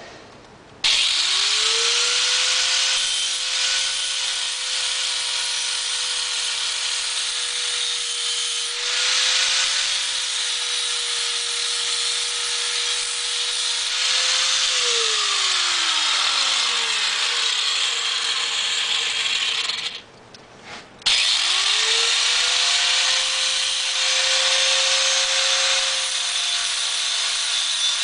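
Electric grinder grinding down the outside of a tube, a steady high motor whine with a grinding hiss over it. About halfway through the motor slows and falls in pitch, then stops briefly before spinning up again and grinding on.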